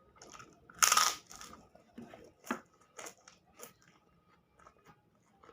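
A person eating close to the microphone: one loud, crunchy bite about a second in, then a string of short chewing clicks and mouth smacks roughly every half second.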